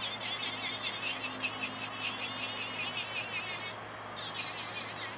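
Electric nail drill with a black-diamond-coated round bit grinding down thick 3D gel art on a fingernail: a high, scratchy grinding in quick regular strokes that breaks off briefly about four seconds in.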